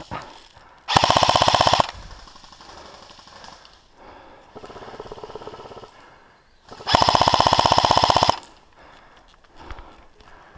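Airsoft gun firing two loud full-auto bursts, about a second and a second and a half long, some six seconds apart, with a quieter burst of rapid fire between them.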